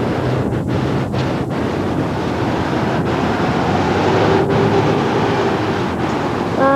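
Steady rumbling wind noise on a camcorder microphone, with road traffic moving across a railroad grade crossing as the gates lift.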